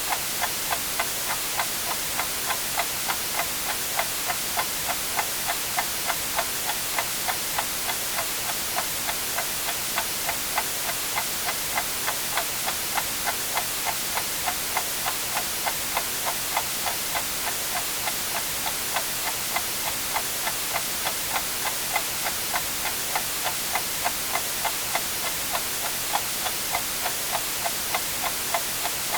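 Clock ticking evenly, a little more than two ticks a second, over a steady hiss of white noise.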